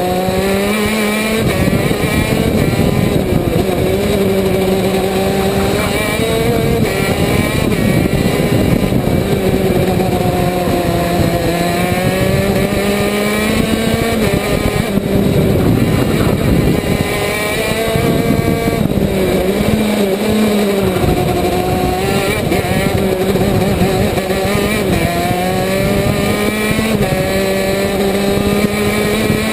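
KZ2 shifter kart's 125 cc two-stroke engine at racing speed, its revs climbing and dropping over and over as the driver works through the gears and brakes for corners.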